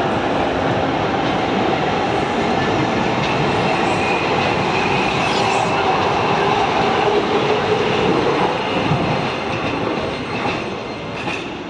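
Hankyu 7300 series seven-car electric train pulling out along the platform, passing close by with steady rail running noise. The sound fades over the last couple of seconds as the rear car moves away.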